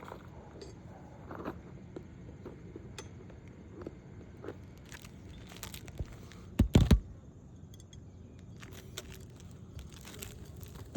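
Roof snake slide hammer striking to drive a roofing nail under an asphalt shingle: a quick run of about three loud knocks a little past halfway, amid scattered small clicks, scrapes and crinkling from handling the shingle.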